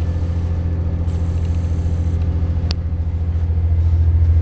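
Underfloor diesel engine of a Class 168 Turbostar diesel multiple unit, heard inside the carriage: a steady low throbbing hum that grows louder in the last second or so as the train powers up to pull away. A single sharp click sounds about halfway through.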